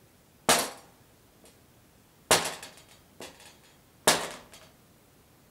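Sharp taps of a marker on a whiteboard as each line is drawn, loud and soft alternating: three loud strikes about 1.8 s apart, each followed by a softer one, a strong–weak two-beat rhythm.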